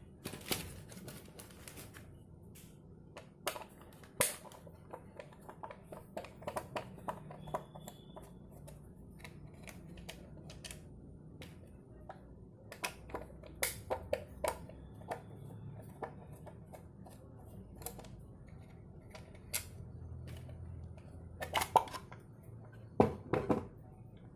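Irregular small clicks and taps of speedometer parts being handled and fitted by hand, with a few louder knocks near the end.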